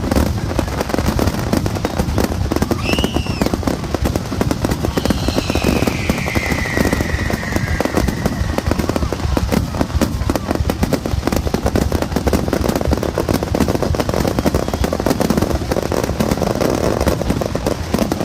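Fireworks going off in a rapid, continuous barrage of bangs and crackling, with a short whistle about three seconds in and a longer whistle falling in pitch from about five to eight seconds.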